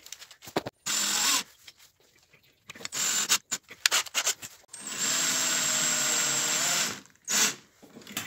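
Cordless drill running in short bursts, with one steady run of about two seconds in the middle, spinning to twist a steel wire looped around a nail into an eye for a lure's wire harness. Small clicks and handling knocks come between the bursts.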